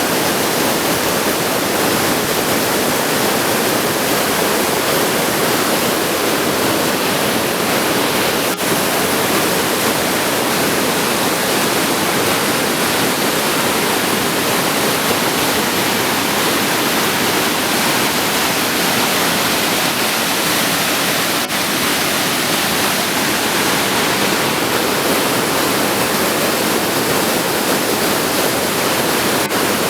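Pistyll Rhaeadr waterfall: a loud, steady, even rush of falling water crashing onto rock.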